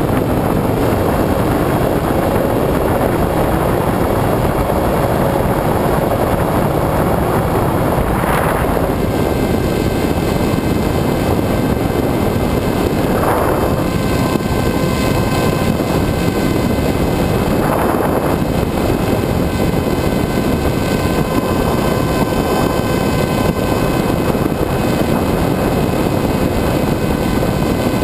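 Wind rushing over the onboard camera of a Multiplex EasyStar RC plane in flight, with a steady whine from its electric pusher motor and propeller that sets in about a third of the way through. There are three brief swells of rushing air.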